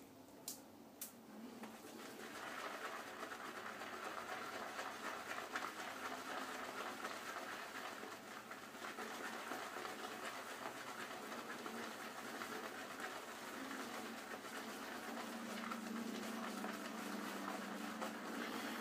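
Wet RazoRock Plissoft synthetic shaving brush being swirled on a hard triple-milled shaving soap to load it: a faint, steady, rhythmic scratchy swishing. Two light clicks come about a second in.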